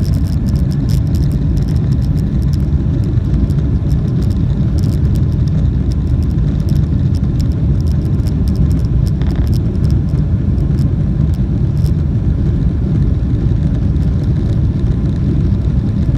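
Steady low rumble of a jet airliner's engines and airflow heard inside the cabin after takeoff, even and unchanging in level.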